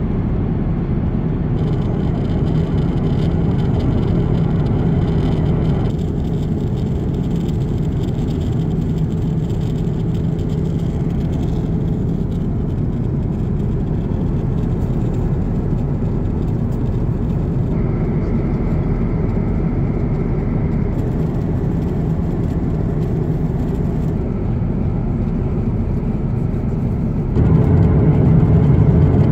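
Steady low rumble inside the cabin of an Airbus A350 airliner in flight: engine and airflow noise, stepping up in level near the end.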